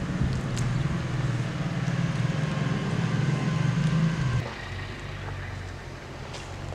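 Low, steady drone of a motor vehicle's engine running, which drops to a quieter, lower hum about four and a half seconds in.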